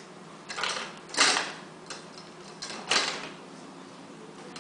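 Three short rustling, scraping handling noises, the loudest about a second in.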